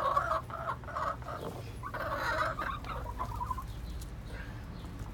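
Hens clucking, a run of short clucks over the first three seconds or so, then quieter.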